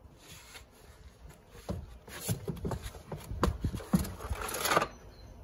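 Plastic door card of an Abarth 595 being pulled off the door: a run of clicks, knocks and scraping as the panel comes free, busiest from about two seconds in until shortly before the end.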